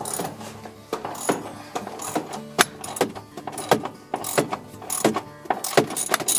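Ratchet wrench clicking in irregular short runs, over background music.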